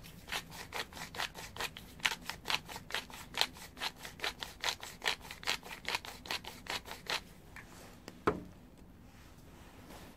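Hand pepper mill grinding black peppercorns: a rapid rasping crunch with each twist, about five strokes a second, stopping about seven seconds in. A single knock follows about a second later.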